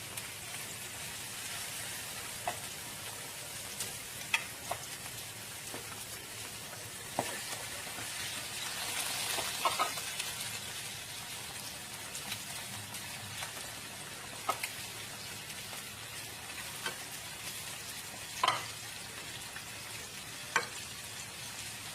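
Food frying in hot oil: a steady sizzle with scattered sharp pops and spatters, swelling for a couple of seconds near the middle.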